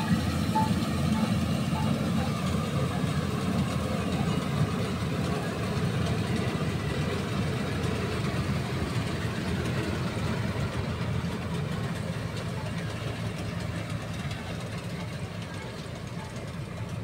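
Combine harvester running steadily as it cuts wheat, its engine and machinery making a heavy continuous drone. The drone grows gradually fainter through the second half as the machine moves away.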